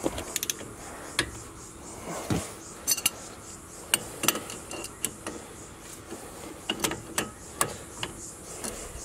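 Socket ratchet clicking in short runs of quick clicks as it undoes the lower bolt on a rear brake caliper, with a spanner holding the guide pin from turning, and a few metal tool clinks.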